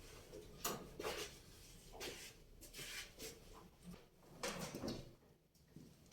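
Faint, irregular knocks and scrapes, about one a second, with a longer rustling scrape about four and a half seconds in, as of objects being handled and moved.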